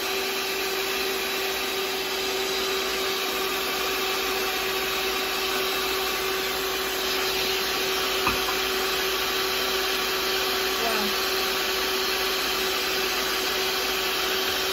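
Electric Sunbeam stand mixer running at a high setting, its beaters whirring steadily through cake batter in a stainless steel bowl as almond flour is mixed in. The motor holds one steady whine.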